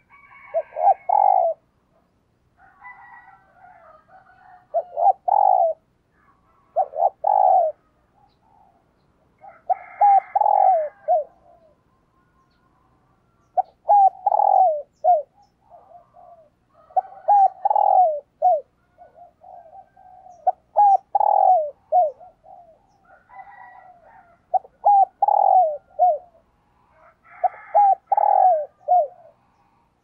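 Spotted dove cooing its song, the decoy call used to draw wild doves, repeating a short multi-note phrase about every three to four seconds, nine times in all.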